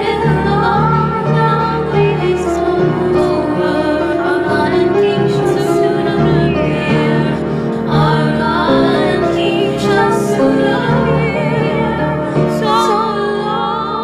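Music: a woman's voice singing with wide vibrato over sustained chords.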